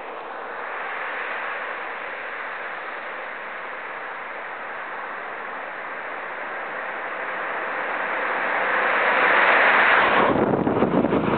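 A motor vehicle approaching head-on, its engine noise growing steadily louder. About ten seconds in it passes right at the microphone, and the sound turns abruptly into a rough rush of wind buffeting.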